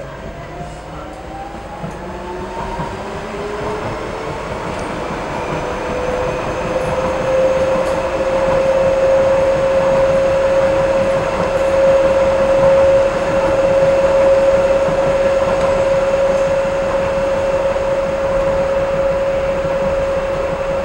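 Docklands Light Railway train pulling away and picking up speed, heard from inside the front of the car. Its motor whine rises in pitch and grows louder over the first several seconds, then settles into one steady tone over the wheel and track rumble as it runs at speed.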